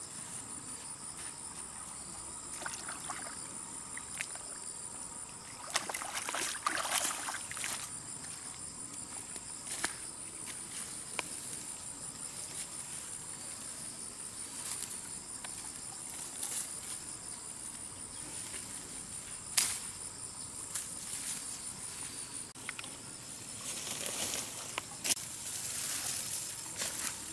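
Steady high-pitched insect chirring, with scattered rustles and light knocks, the sharpest a little before the two-thirds mark.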